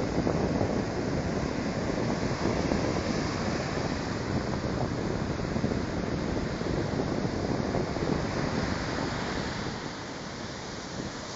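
Black Sea surf breaking and washing up a sandy beach in a steady rush, a little quieter near the end.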